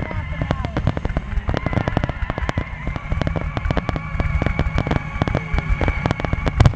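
A fireworks finale: a dense, rapid string of sharp cracks and booms, several a second, over a continuous low rumble. A thin steady whistle joins about three seconds in.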